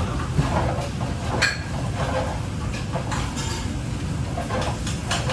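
Kitchen work noise: a steady low rumble with a few sharp clinks of plates and utensils.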